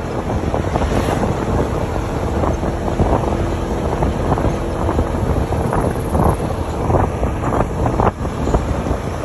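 Wind rushing over the microphone of a moving vehicle, over a steady rumble of engine and road noise, with a few short knocks about two-thirds of the way through.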